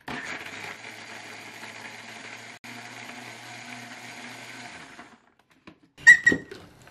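Electric countertop blender running steadily for about five seconds as it purées red chillies, garlic and broth, with one split-second break partway through, then switched off. A short plastic clatter comes near the end as the jar is handled.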